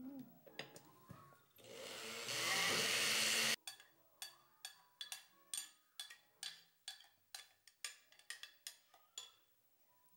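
Countertop blender running briefly on a thick mamey, cream cheese and milk mousse mix, its motor noise rising then cutting off suddenly after about two seconds. Then a spoon knocks against the plastic blender jar, about three or four knocks a second, as the thick mix is stirred down toward the blades.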